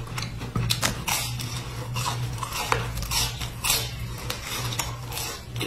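Close-miked biting and chewing of a crisp biscuit sandwich with a dark filling: a run of short, sharp crunches and crackles, over a steady low hum.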